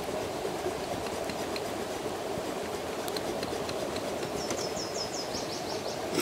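Small stick campfire burning over a steady low rushing background, with occasional faint crackles. A bird trills briefly in the second half, and a louder pop or crackle comes at the very end.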